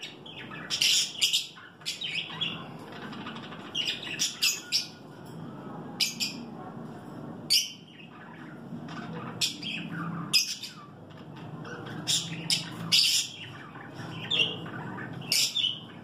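Caged blue masked lovebirds and budgerigars giving many short, shrill chirps and squawks, irregularly spaced and sometimes in quick runs of two or three, over a low steady hum.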